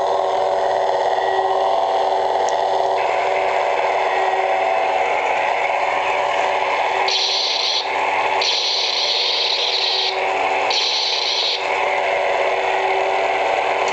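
Several lightsaber sound boards playing their idle hum at once: a steady layered hum over hiss. A higher hiss cuts in and out three times in the second half.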